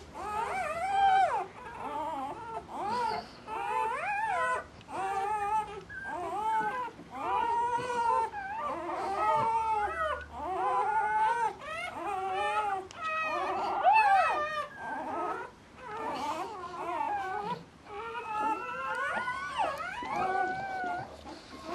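A litter of newborn Bouvier des Flandres puppies whimpering and squealing: many high, wavering calls that rise and fall and overlap almost without a pause.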